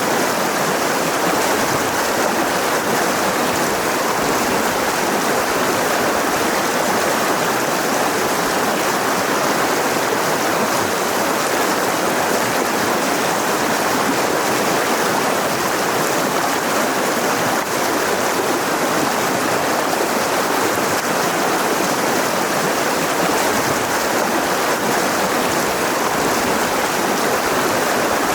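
Mountain river rushing over rocks: a steady, even rush of flowing water.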